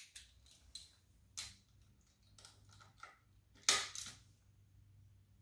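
Small hand ratchet with a hex (Allen) socket clicking in short runs as it works a timing viewport plug on a dirt-bike engine's side cover, with a louder clatter of metal clicks about three and a half seconds in.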